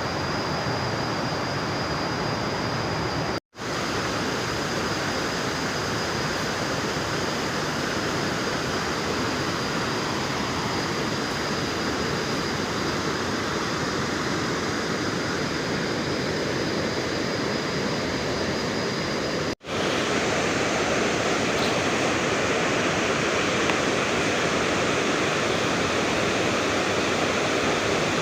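Waterfall running with a steady rushing noise, cut off twice for an instant. After the second break, about two-thirds of the way in, it is a little louder and fuller, and a thin high steady tone heard in the first part is gone.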